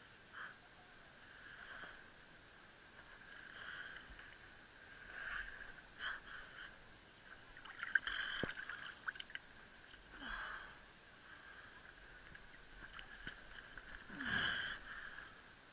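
Water sloshing and splashing at the edge of rocks in a series of short swells, the loudest a splash with a sharp click about eight seconds in as a spinning rod and reel are pulled up out of the water, and another near the end.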